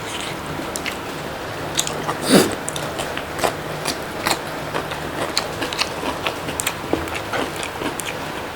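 A person chewing food, with many small wet mouth clicks and smacks, and one louder sound about two seconds in.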